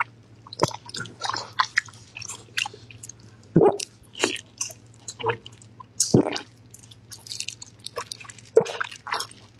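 Close-miked biting and chewing of a soft stuffed sausage (guanchang): irregular mouth clicks and smacks, with a handful of louder bites spread through.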